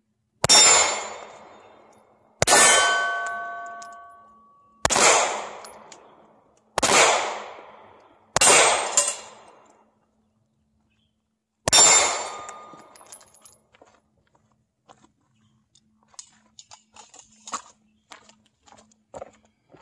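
Six pistol shots, about two seconds apart, each echoing off the range. Steel targets are hit and ring with clear pinging tones, most plainly after the second shot. Faint scattered clicks and crunches follow.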